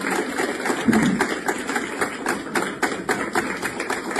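A small group of people applauding with dense, irregular hand claps.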